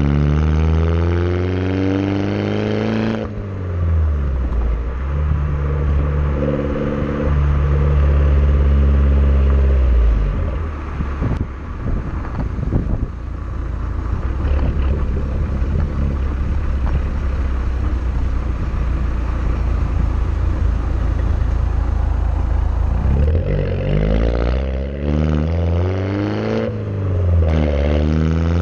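Peugeot 208 GTi's turbocharged 1.6-litre four-cylinder heard close at the tailpipes of a custom exhaust with the rear silencer removed, while driving. The revs climb under acceleration, fall sharply, then settle into a deep low burble. A long stretch of low rumble and road noise follows, and the revs rise and fall several times near the end.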